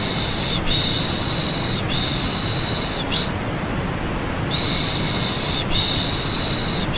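Rhythmic 'shh' shushing for soothing a baby: hissing shushes about a second long each, coming in runs of three with a short pause between runs, over a steady white-noise rush.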